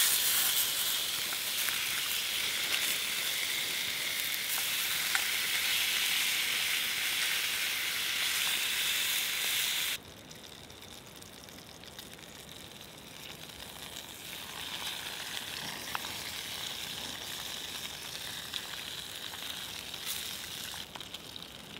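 Lamb cutlets sizzling as they fry, a steady hiss. About halfway through it drops suddenly to a quieter sizzle, which grows a little louder again toward the end.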